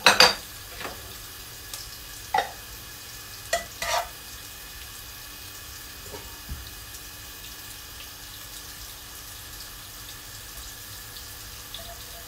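Hot ghee sizzling faintly and steadily in a non-stick frying pan, with a spoon clinking sharply a few times as ghee is scooped from a jar and scraped into the pan; the loudest clinks come at the start.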